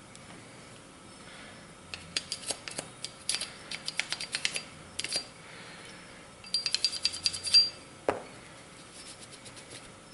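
Small metal handgun parts being scrubbed and handled during cleaning: two runs of quick, light clicks and scratches, then a single knock about eight seconds in.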